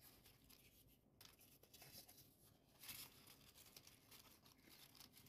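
Faint rustling of folded origami paper as hands slot the last curler unit into the kusudama ball, a little louder about three seconds in.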